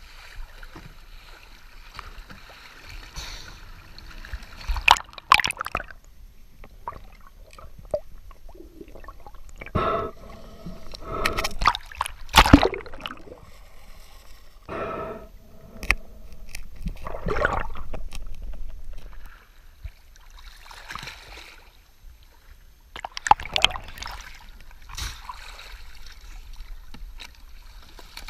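Sea water sloshing and splashing around a camera at the surface and under it, with several loud bursts of splashing among quieter, muffled stretches.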